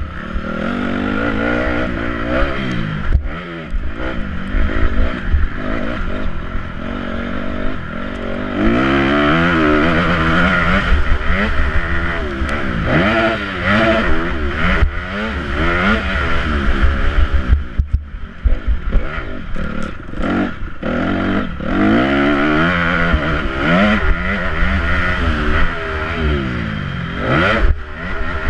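Motocross bike engine revving up and dropping off again and again as the rider throttles, shifts and backs off through the track's corners and jumps, with a few short cuts in throttle. Wind rumbles on the helmet-mounted microphone underneath.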